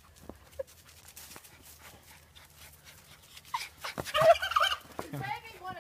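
A domestic turkey calling: a loud, choppy, rattling call about four seconds in, after a few faint soft sounds.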